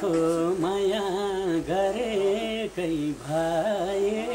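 A man singing a verse of Nepali dohori folk song. His voice holds long notes that waver and bend, with short breaks between phrases.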